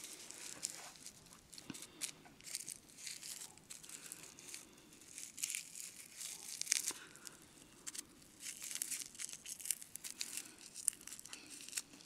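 Thin cigarette rolling paper crinkling and rustling between fingertips as a cigarette of loose tobacco is rolled by hand: many short, faint, irregular rustles.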